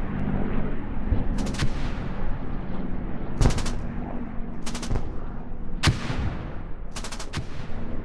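Machine-gun fire in several short rapid bursts, with a single sharp shot between them, over a steady low drone and rumble: a staged World War II battle soundscape.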